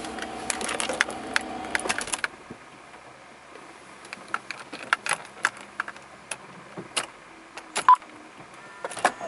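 A steady low hum stops about two seconds in, leaving irregular sharp clicks and ticks from the Mercedes-Benz W124 E36T being checked for abnormal noises.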